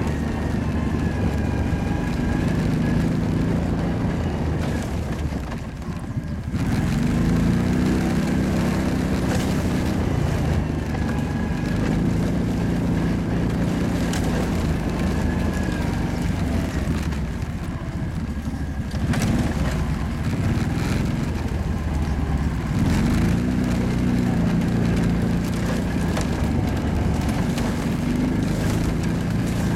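Kawasaki ATV engine running under way, its note rising and falling with the throttle. It eases off briefly about five seconds in and again around seventeen seconds in, then pulls back up.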